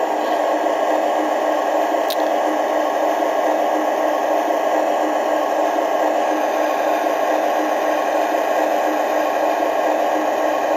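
Lionel LionChief GE Tier 4 O-gauge locomotive's onboard diesel sound: a steady engine idle played through its small speaker, with one brief click about two seconds in.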